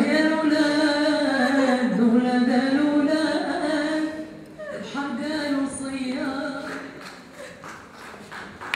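A single voice singing unaccompanied, in long held notes that slide up and down, in two phrases; the second phrase fades away near the end.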